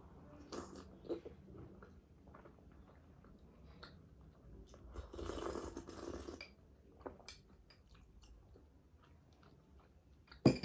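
A person chewing soft sweets close to the microphone, with small wet mouth clicks. There is a louder noisy stretch about five seconds in and a sharp knock at the very end.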